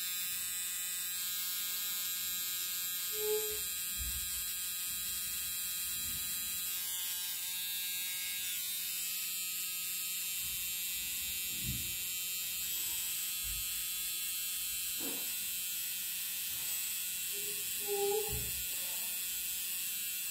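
Corded permanent-makeup machine pen buzzing steadily as its needle works pigment into an eyebrow, with a few soft knocks now and then.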